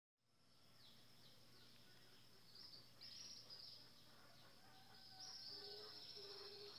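Faint early-morning outdoor ambience fading in: birds chirping with short falling calls over a steady high insect drone, with a few longer, lower calls in the second half.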